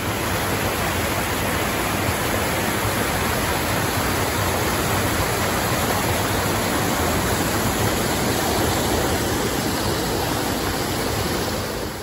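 Small waterfall cascading over rocks and fallen logs: a steady rush of falling water.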